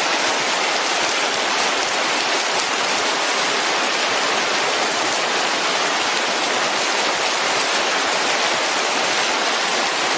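Muddy floodwater rushing fast down a drainage ditch swollen to overflowing by a cloudburst: a loud, steady rushing noise of running water.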